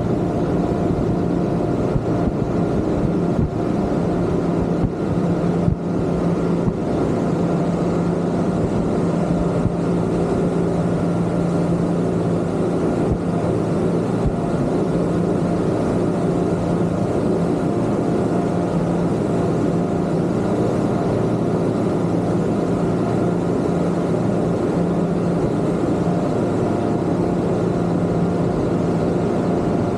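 Twin Yamaha 250 outboard motors running at a steady cruising speed, a constant drone. A few brief thumps come through in the first seven seconds.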